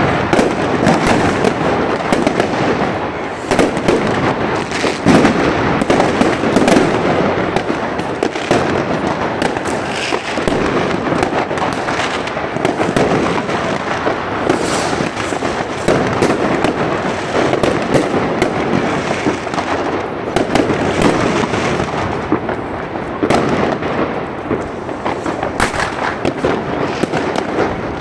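Fireworks rockets and firecrackers going off in a dense, continuous string of bangs and crackles, thinning slightly near the end.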